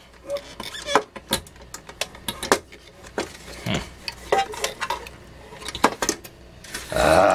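Scattered light metallic clicks and clatters as hands tug at cables and the sheet-metal chassis, trying to work a stuck CRT monitor assembly loose, with a louder scraping rattle lasting about half a second near the end.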